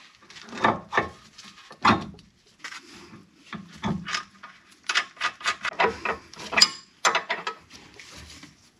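Hand tools on the steel tie rod end of a Porsche 928 steering linkage: irregular metal clicks, taps and scrapes as the nut on the ball stud is worked, with quicker runs of clicks in the second half.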